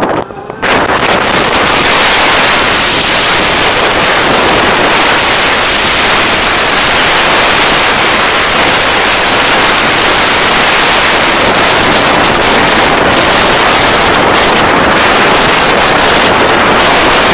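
Loud, steady wind rush on a helmet-mounted camera's microphone from riding a motorcycle at road speed. It dips briefly and comes back sharply just under a second in.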